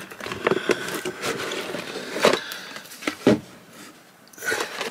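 Cardboard model-kit box being opened by hand, its lid lifted off the tray: irregular rustling, scraping and light knocks of cardboard, easing off about three and a half seconds in.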